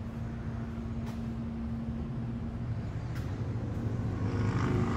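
Low steady mechanical rumble with a hum, growing louder over the last couple of seconds.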